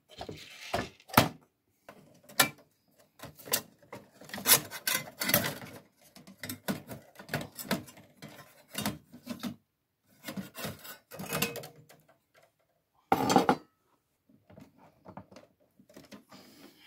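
Plastic and metal parts of a Sony CMT-CP33 micro hi-fi's CD loading mechanism and chassis clicking, knocking and rubbing against each other as they are handled and worked loose by hand, in irregular bursts with short pauses, and one louder rattle about three-quarters of the way through.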